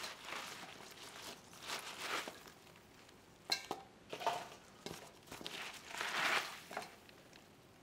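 Wet, salted green onions rustling in a series of soft swishes as gloved hands gather and lift them in a stainless steel bowl, with a sharp clink against the metal bowl about three and a half seconds in.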